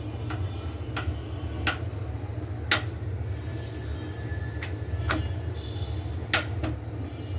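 Spatula knocking and scraping against a nonstick frying pan as a paratha is lifted, flipped and pressed: about six sharp clicks over a steady low hum.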